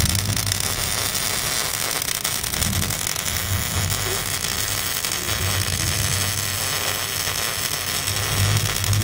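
MIG welding arc on thin steel: a steady crackling hiss, with a low hum underneath.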